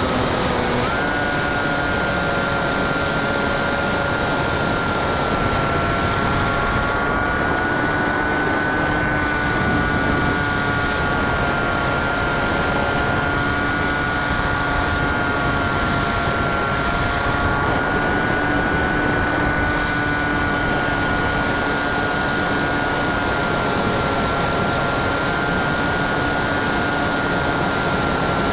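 Brushless electric motor (NTM 35-30A 1400kv) turning a 9x6 propeller on a Bixler 2 foam RC plane in flight, heard through the onboard camera: a steady whine over wind rush. The pitch steps up a little about a second in and then holds nearly level.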